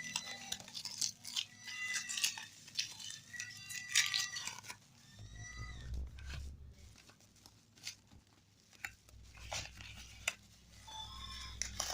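Parcel packaging being handled and torn open: irregular rustling, crinkling and tearing of plastic wrap and tape, with small clicks and squeaks.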